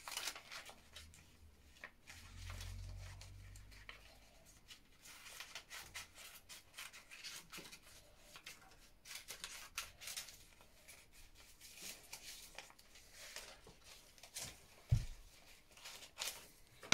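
Small scissors snipping through paper: a run of quick, faint snips with paper rustling. A single dull thump comes about fifteen seconds in.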